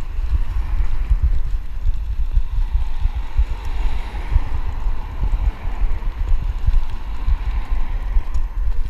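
Heavy wind rumble buffeting the microphone, with a car driving past on the road, swelling about four seconds in and fading again.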